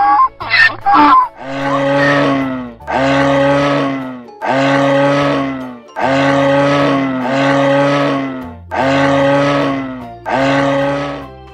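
A donkey's bray ends in the first second. Then a red deer stag gives seven long, deep rutting roars, one after another, each about a second long and dropping a little in pitch.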